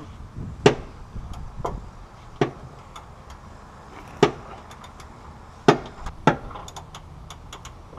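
Sharp metal knocks of tools on the rear shock absorber's mounting bolt: about six strikes at uneven intervals, then a few light clicks near the end.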